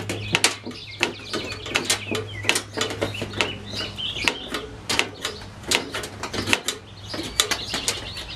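Thin painted sheet-metal trailer skin being flexed back and forth by hand so that it tears along a scribed line, giving a rapid, irregular run of crackling clicks and pops as the metal fatigues.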